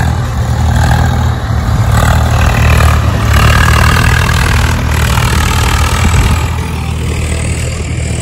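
Farm tractor's diesel engine running steadily under load as it pulls a loaded trailer through deep mud.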